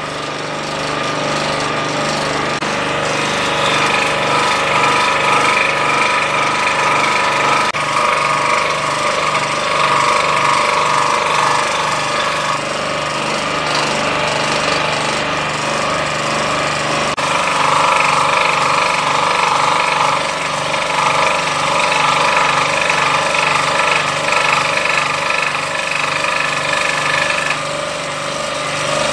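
Old scroll saw running with a pinless blade, cutting through MDF: a steady, rapid reciprocating chatter over the motor's hum, with the cutting note shifting as the work is fed and turned. The sound changes abruptly twice, at about 8 and 17 seconds in.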